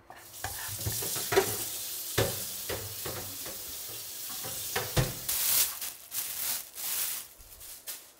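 Vegetables being stir-fried in oil in a frying pan: a steady sizzle with sharp clicks and scrapes of a spatula against the pan. The sizzle swells about five seconds in and fades near the end.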